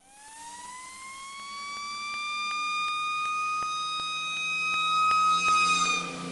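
Siren winding up from a low pitch to a steady high wail over about two seconds, holding it, then starting to fall near the end.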